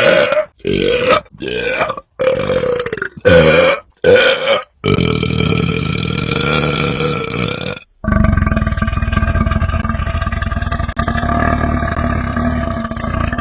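A man belching: a run of about six short belches, then two long drawn-out ones, the last lasting more than five seconds with a rattling texture.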